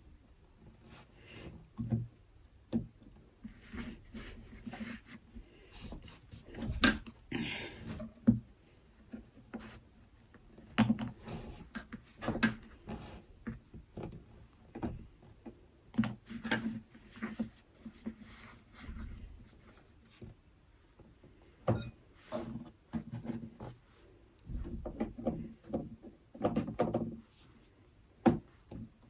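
Irregular knocks, taps and clatter of baking things being handled on a kitchen worktop, with quiet gaps between.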